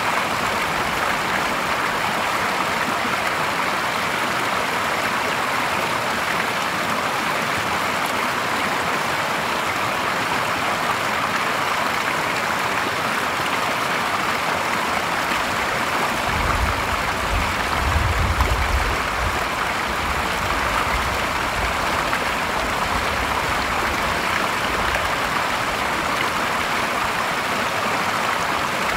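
Clear stream water spilling in a small fall over a log weir into a shallow pool: a steady rushing splash. A little past halfway a low rumble joins for several seconds, strongest about two seconds after it starts, then fades.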